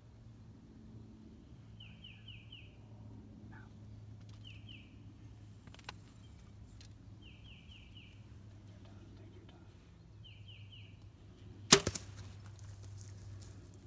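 A Mathews Halon 6 compound bow is shot at a turkey: one sharp, loud crack of the string release and arrow strike, followed by a brief ragged burst as the hit gobbler flaps. Before it, faint bird chirps come in short runs of three or four, several times.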